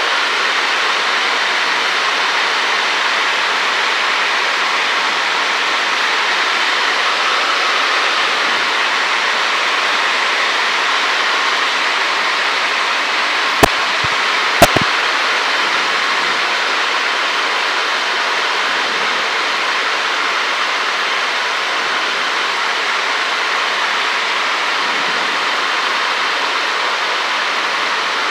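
Steady cockpit noise of a Cessna 152 in flight, heard as an even rushing hiss with the low engine rumble cut away. Two sharp clicks about a second apart come near the middle.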